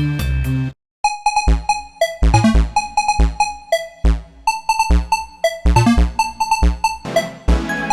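Siemens Xelibri 5 ringtones played as MIDI on a rock soundfont. One tune cuts off just under a second in, and after a brief silence the next starts: an electronic ringtone of repeated synth notes over a drum-machine beat.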